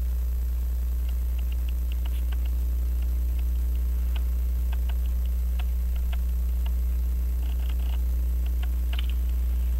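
Steady low electrical mains hum, with a few faint, irregular light ticks over it.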